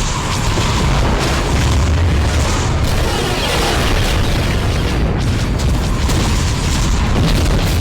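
Star Wars Y-wing space-combat sound effects: a dense, loud mix of booming explosions over a continuous low rumble.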